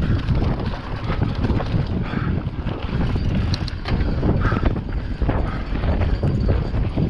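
Wind buffeting the microphone of a mountain bike's on-board camera at riding speed, over the rumble of tyres on dirt trail. Frequent short knocks and rattles come from the bike as it runs over rough ground.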